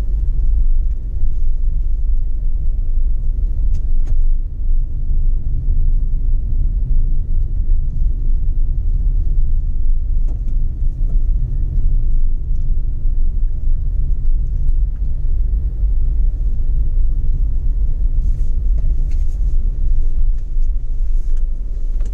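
Steady low rumble of a small van driving on the road, heard from inside the cabin, with a few faint clicks.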